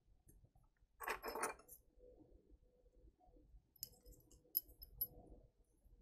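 Faint bench handling sounds: a short soft noise about a second in, then a few small sharp clicks and clinks near the end, over a faint steady hum.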